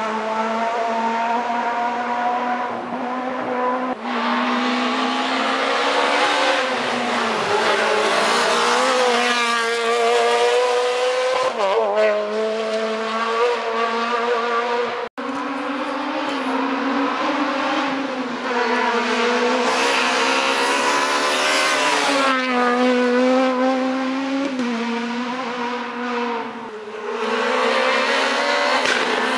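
Rally car engines driven hard on a forest special stage, the revs climbing and dropping repeatedly through gear changes. The sound breaks off abruptly about halfway through, and a second car's engine takes over as it approaches.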